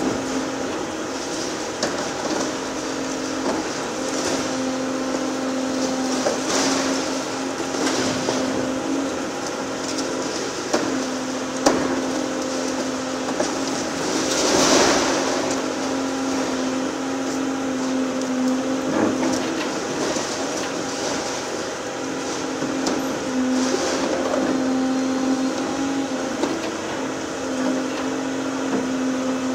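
Volvo EC750E HR high-reach demolition excavator running with a steady engine and hydraulic hum while its demolition shear tears into a brick building. Intermittent crunching and clattering of masonry, with a sharp crack a little before halfway and a brief louder rush about halfway through.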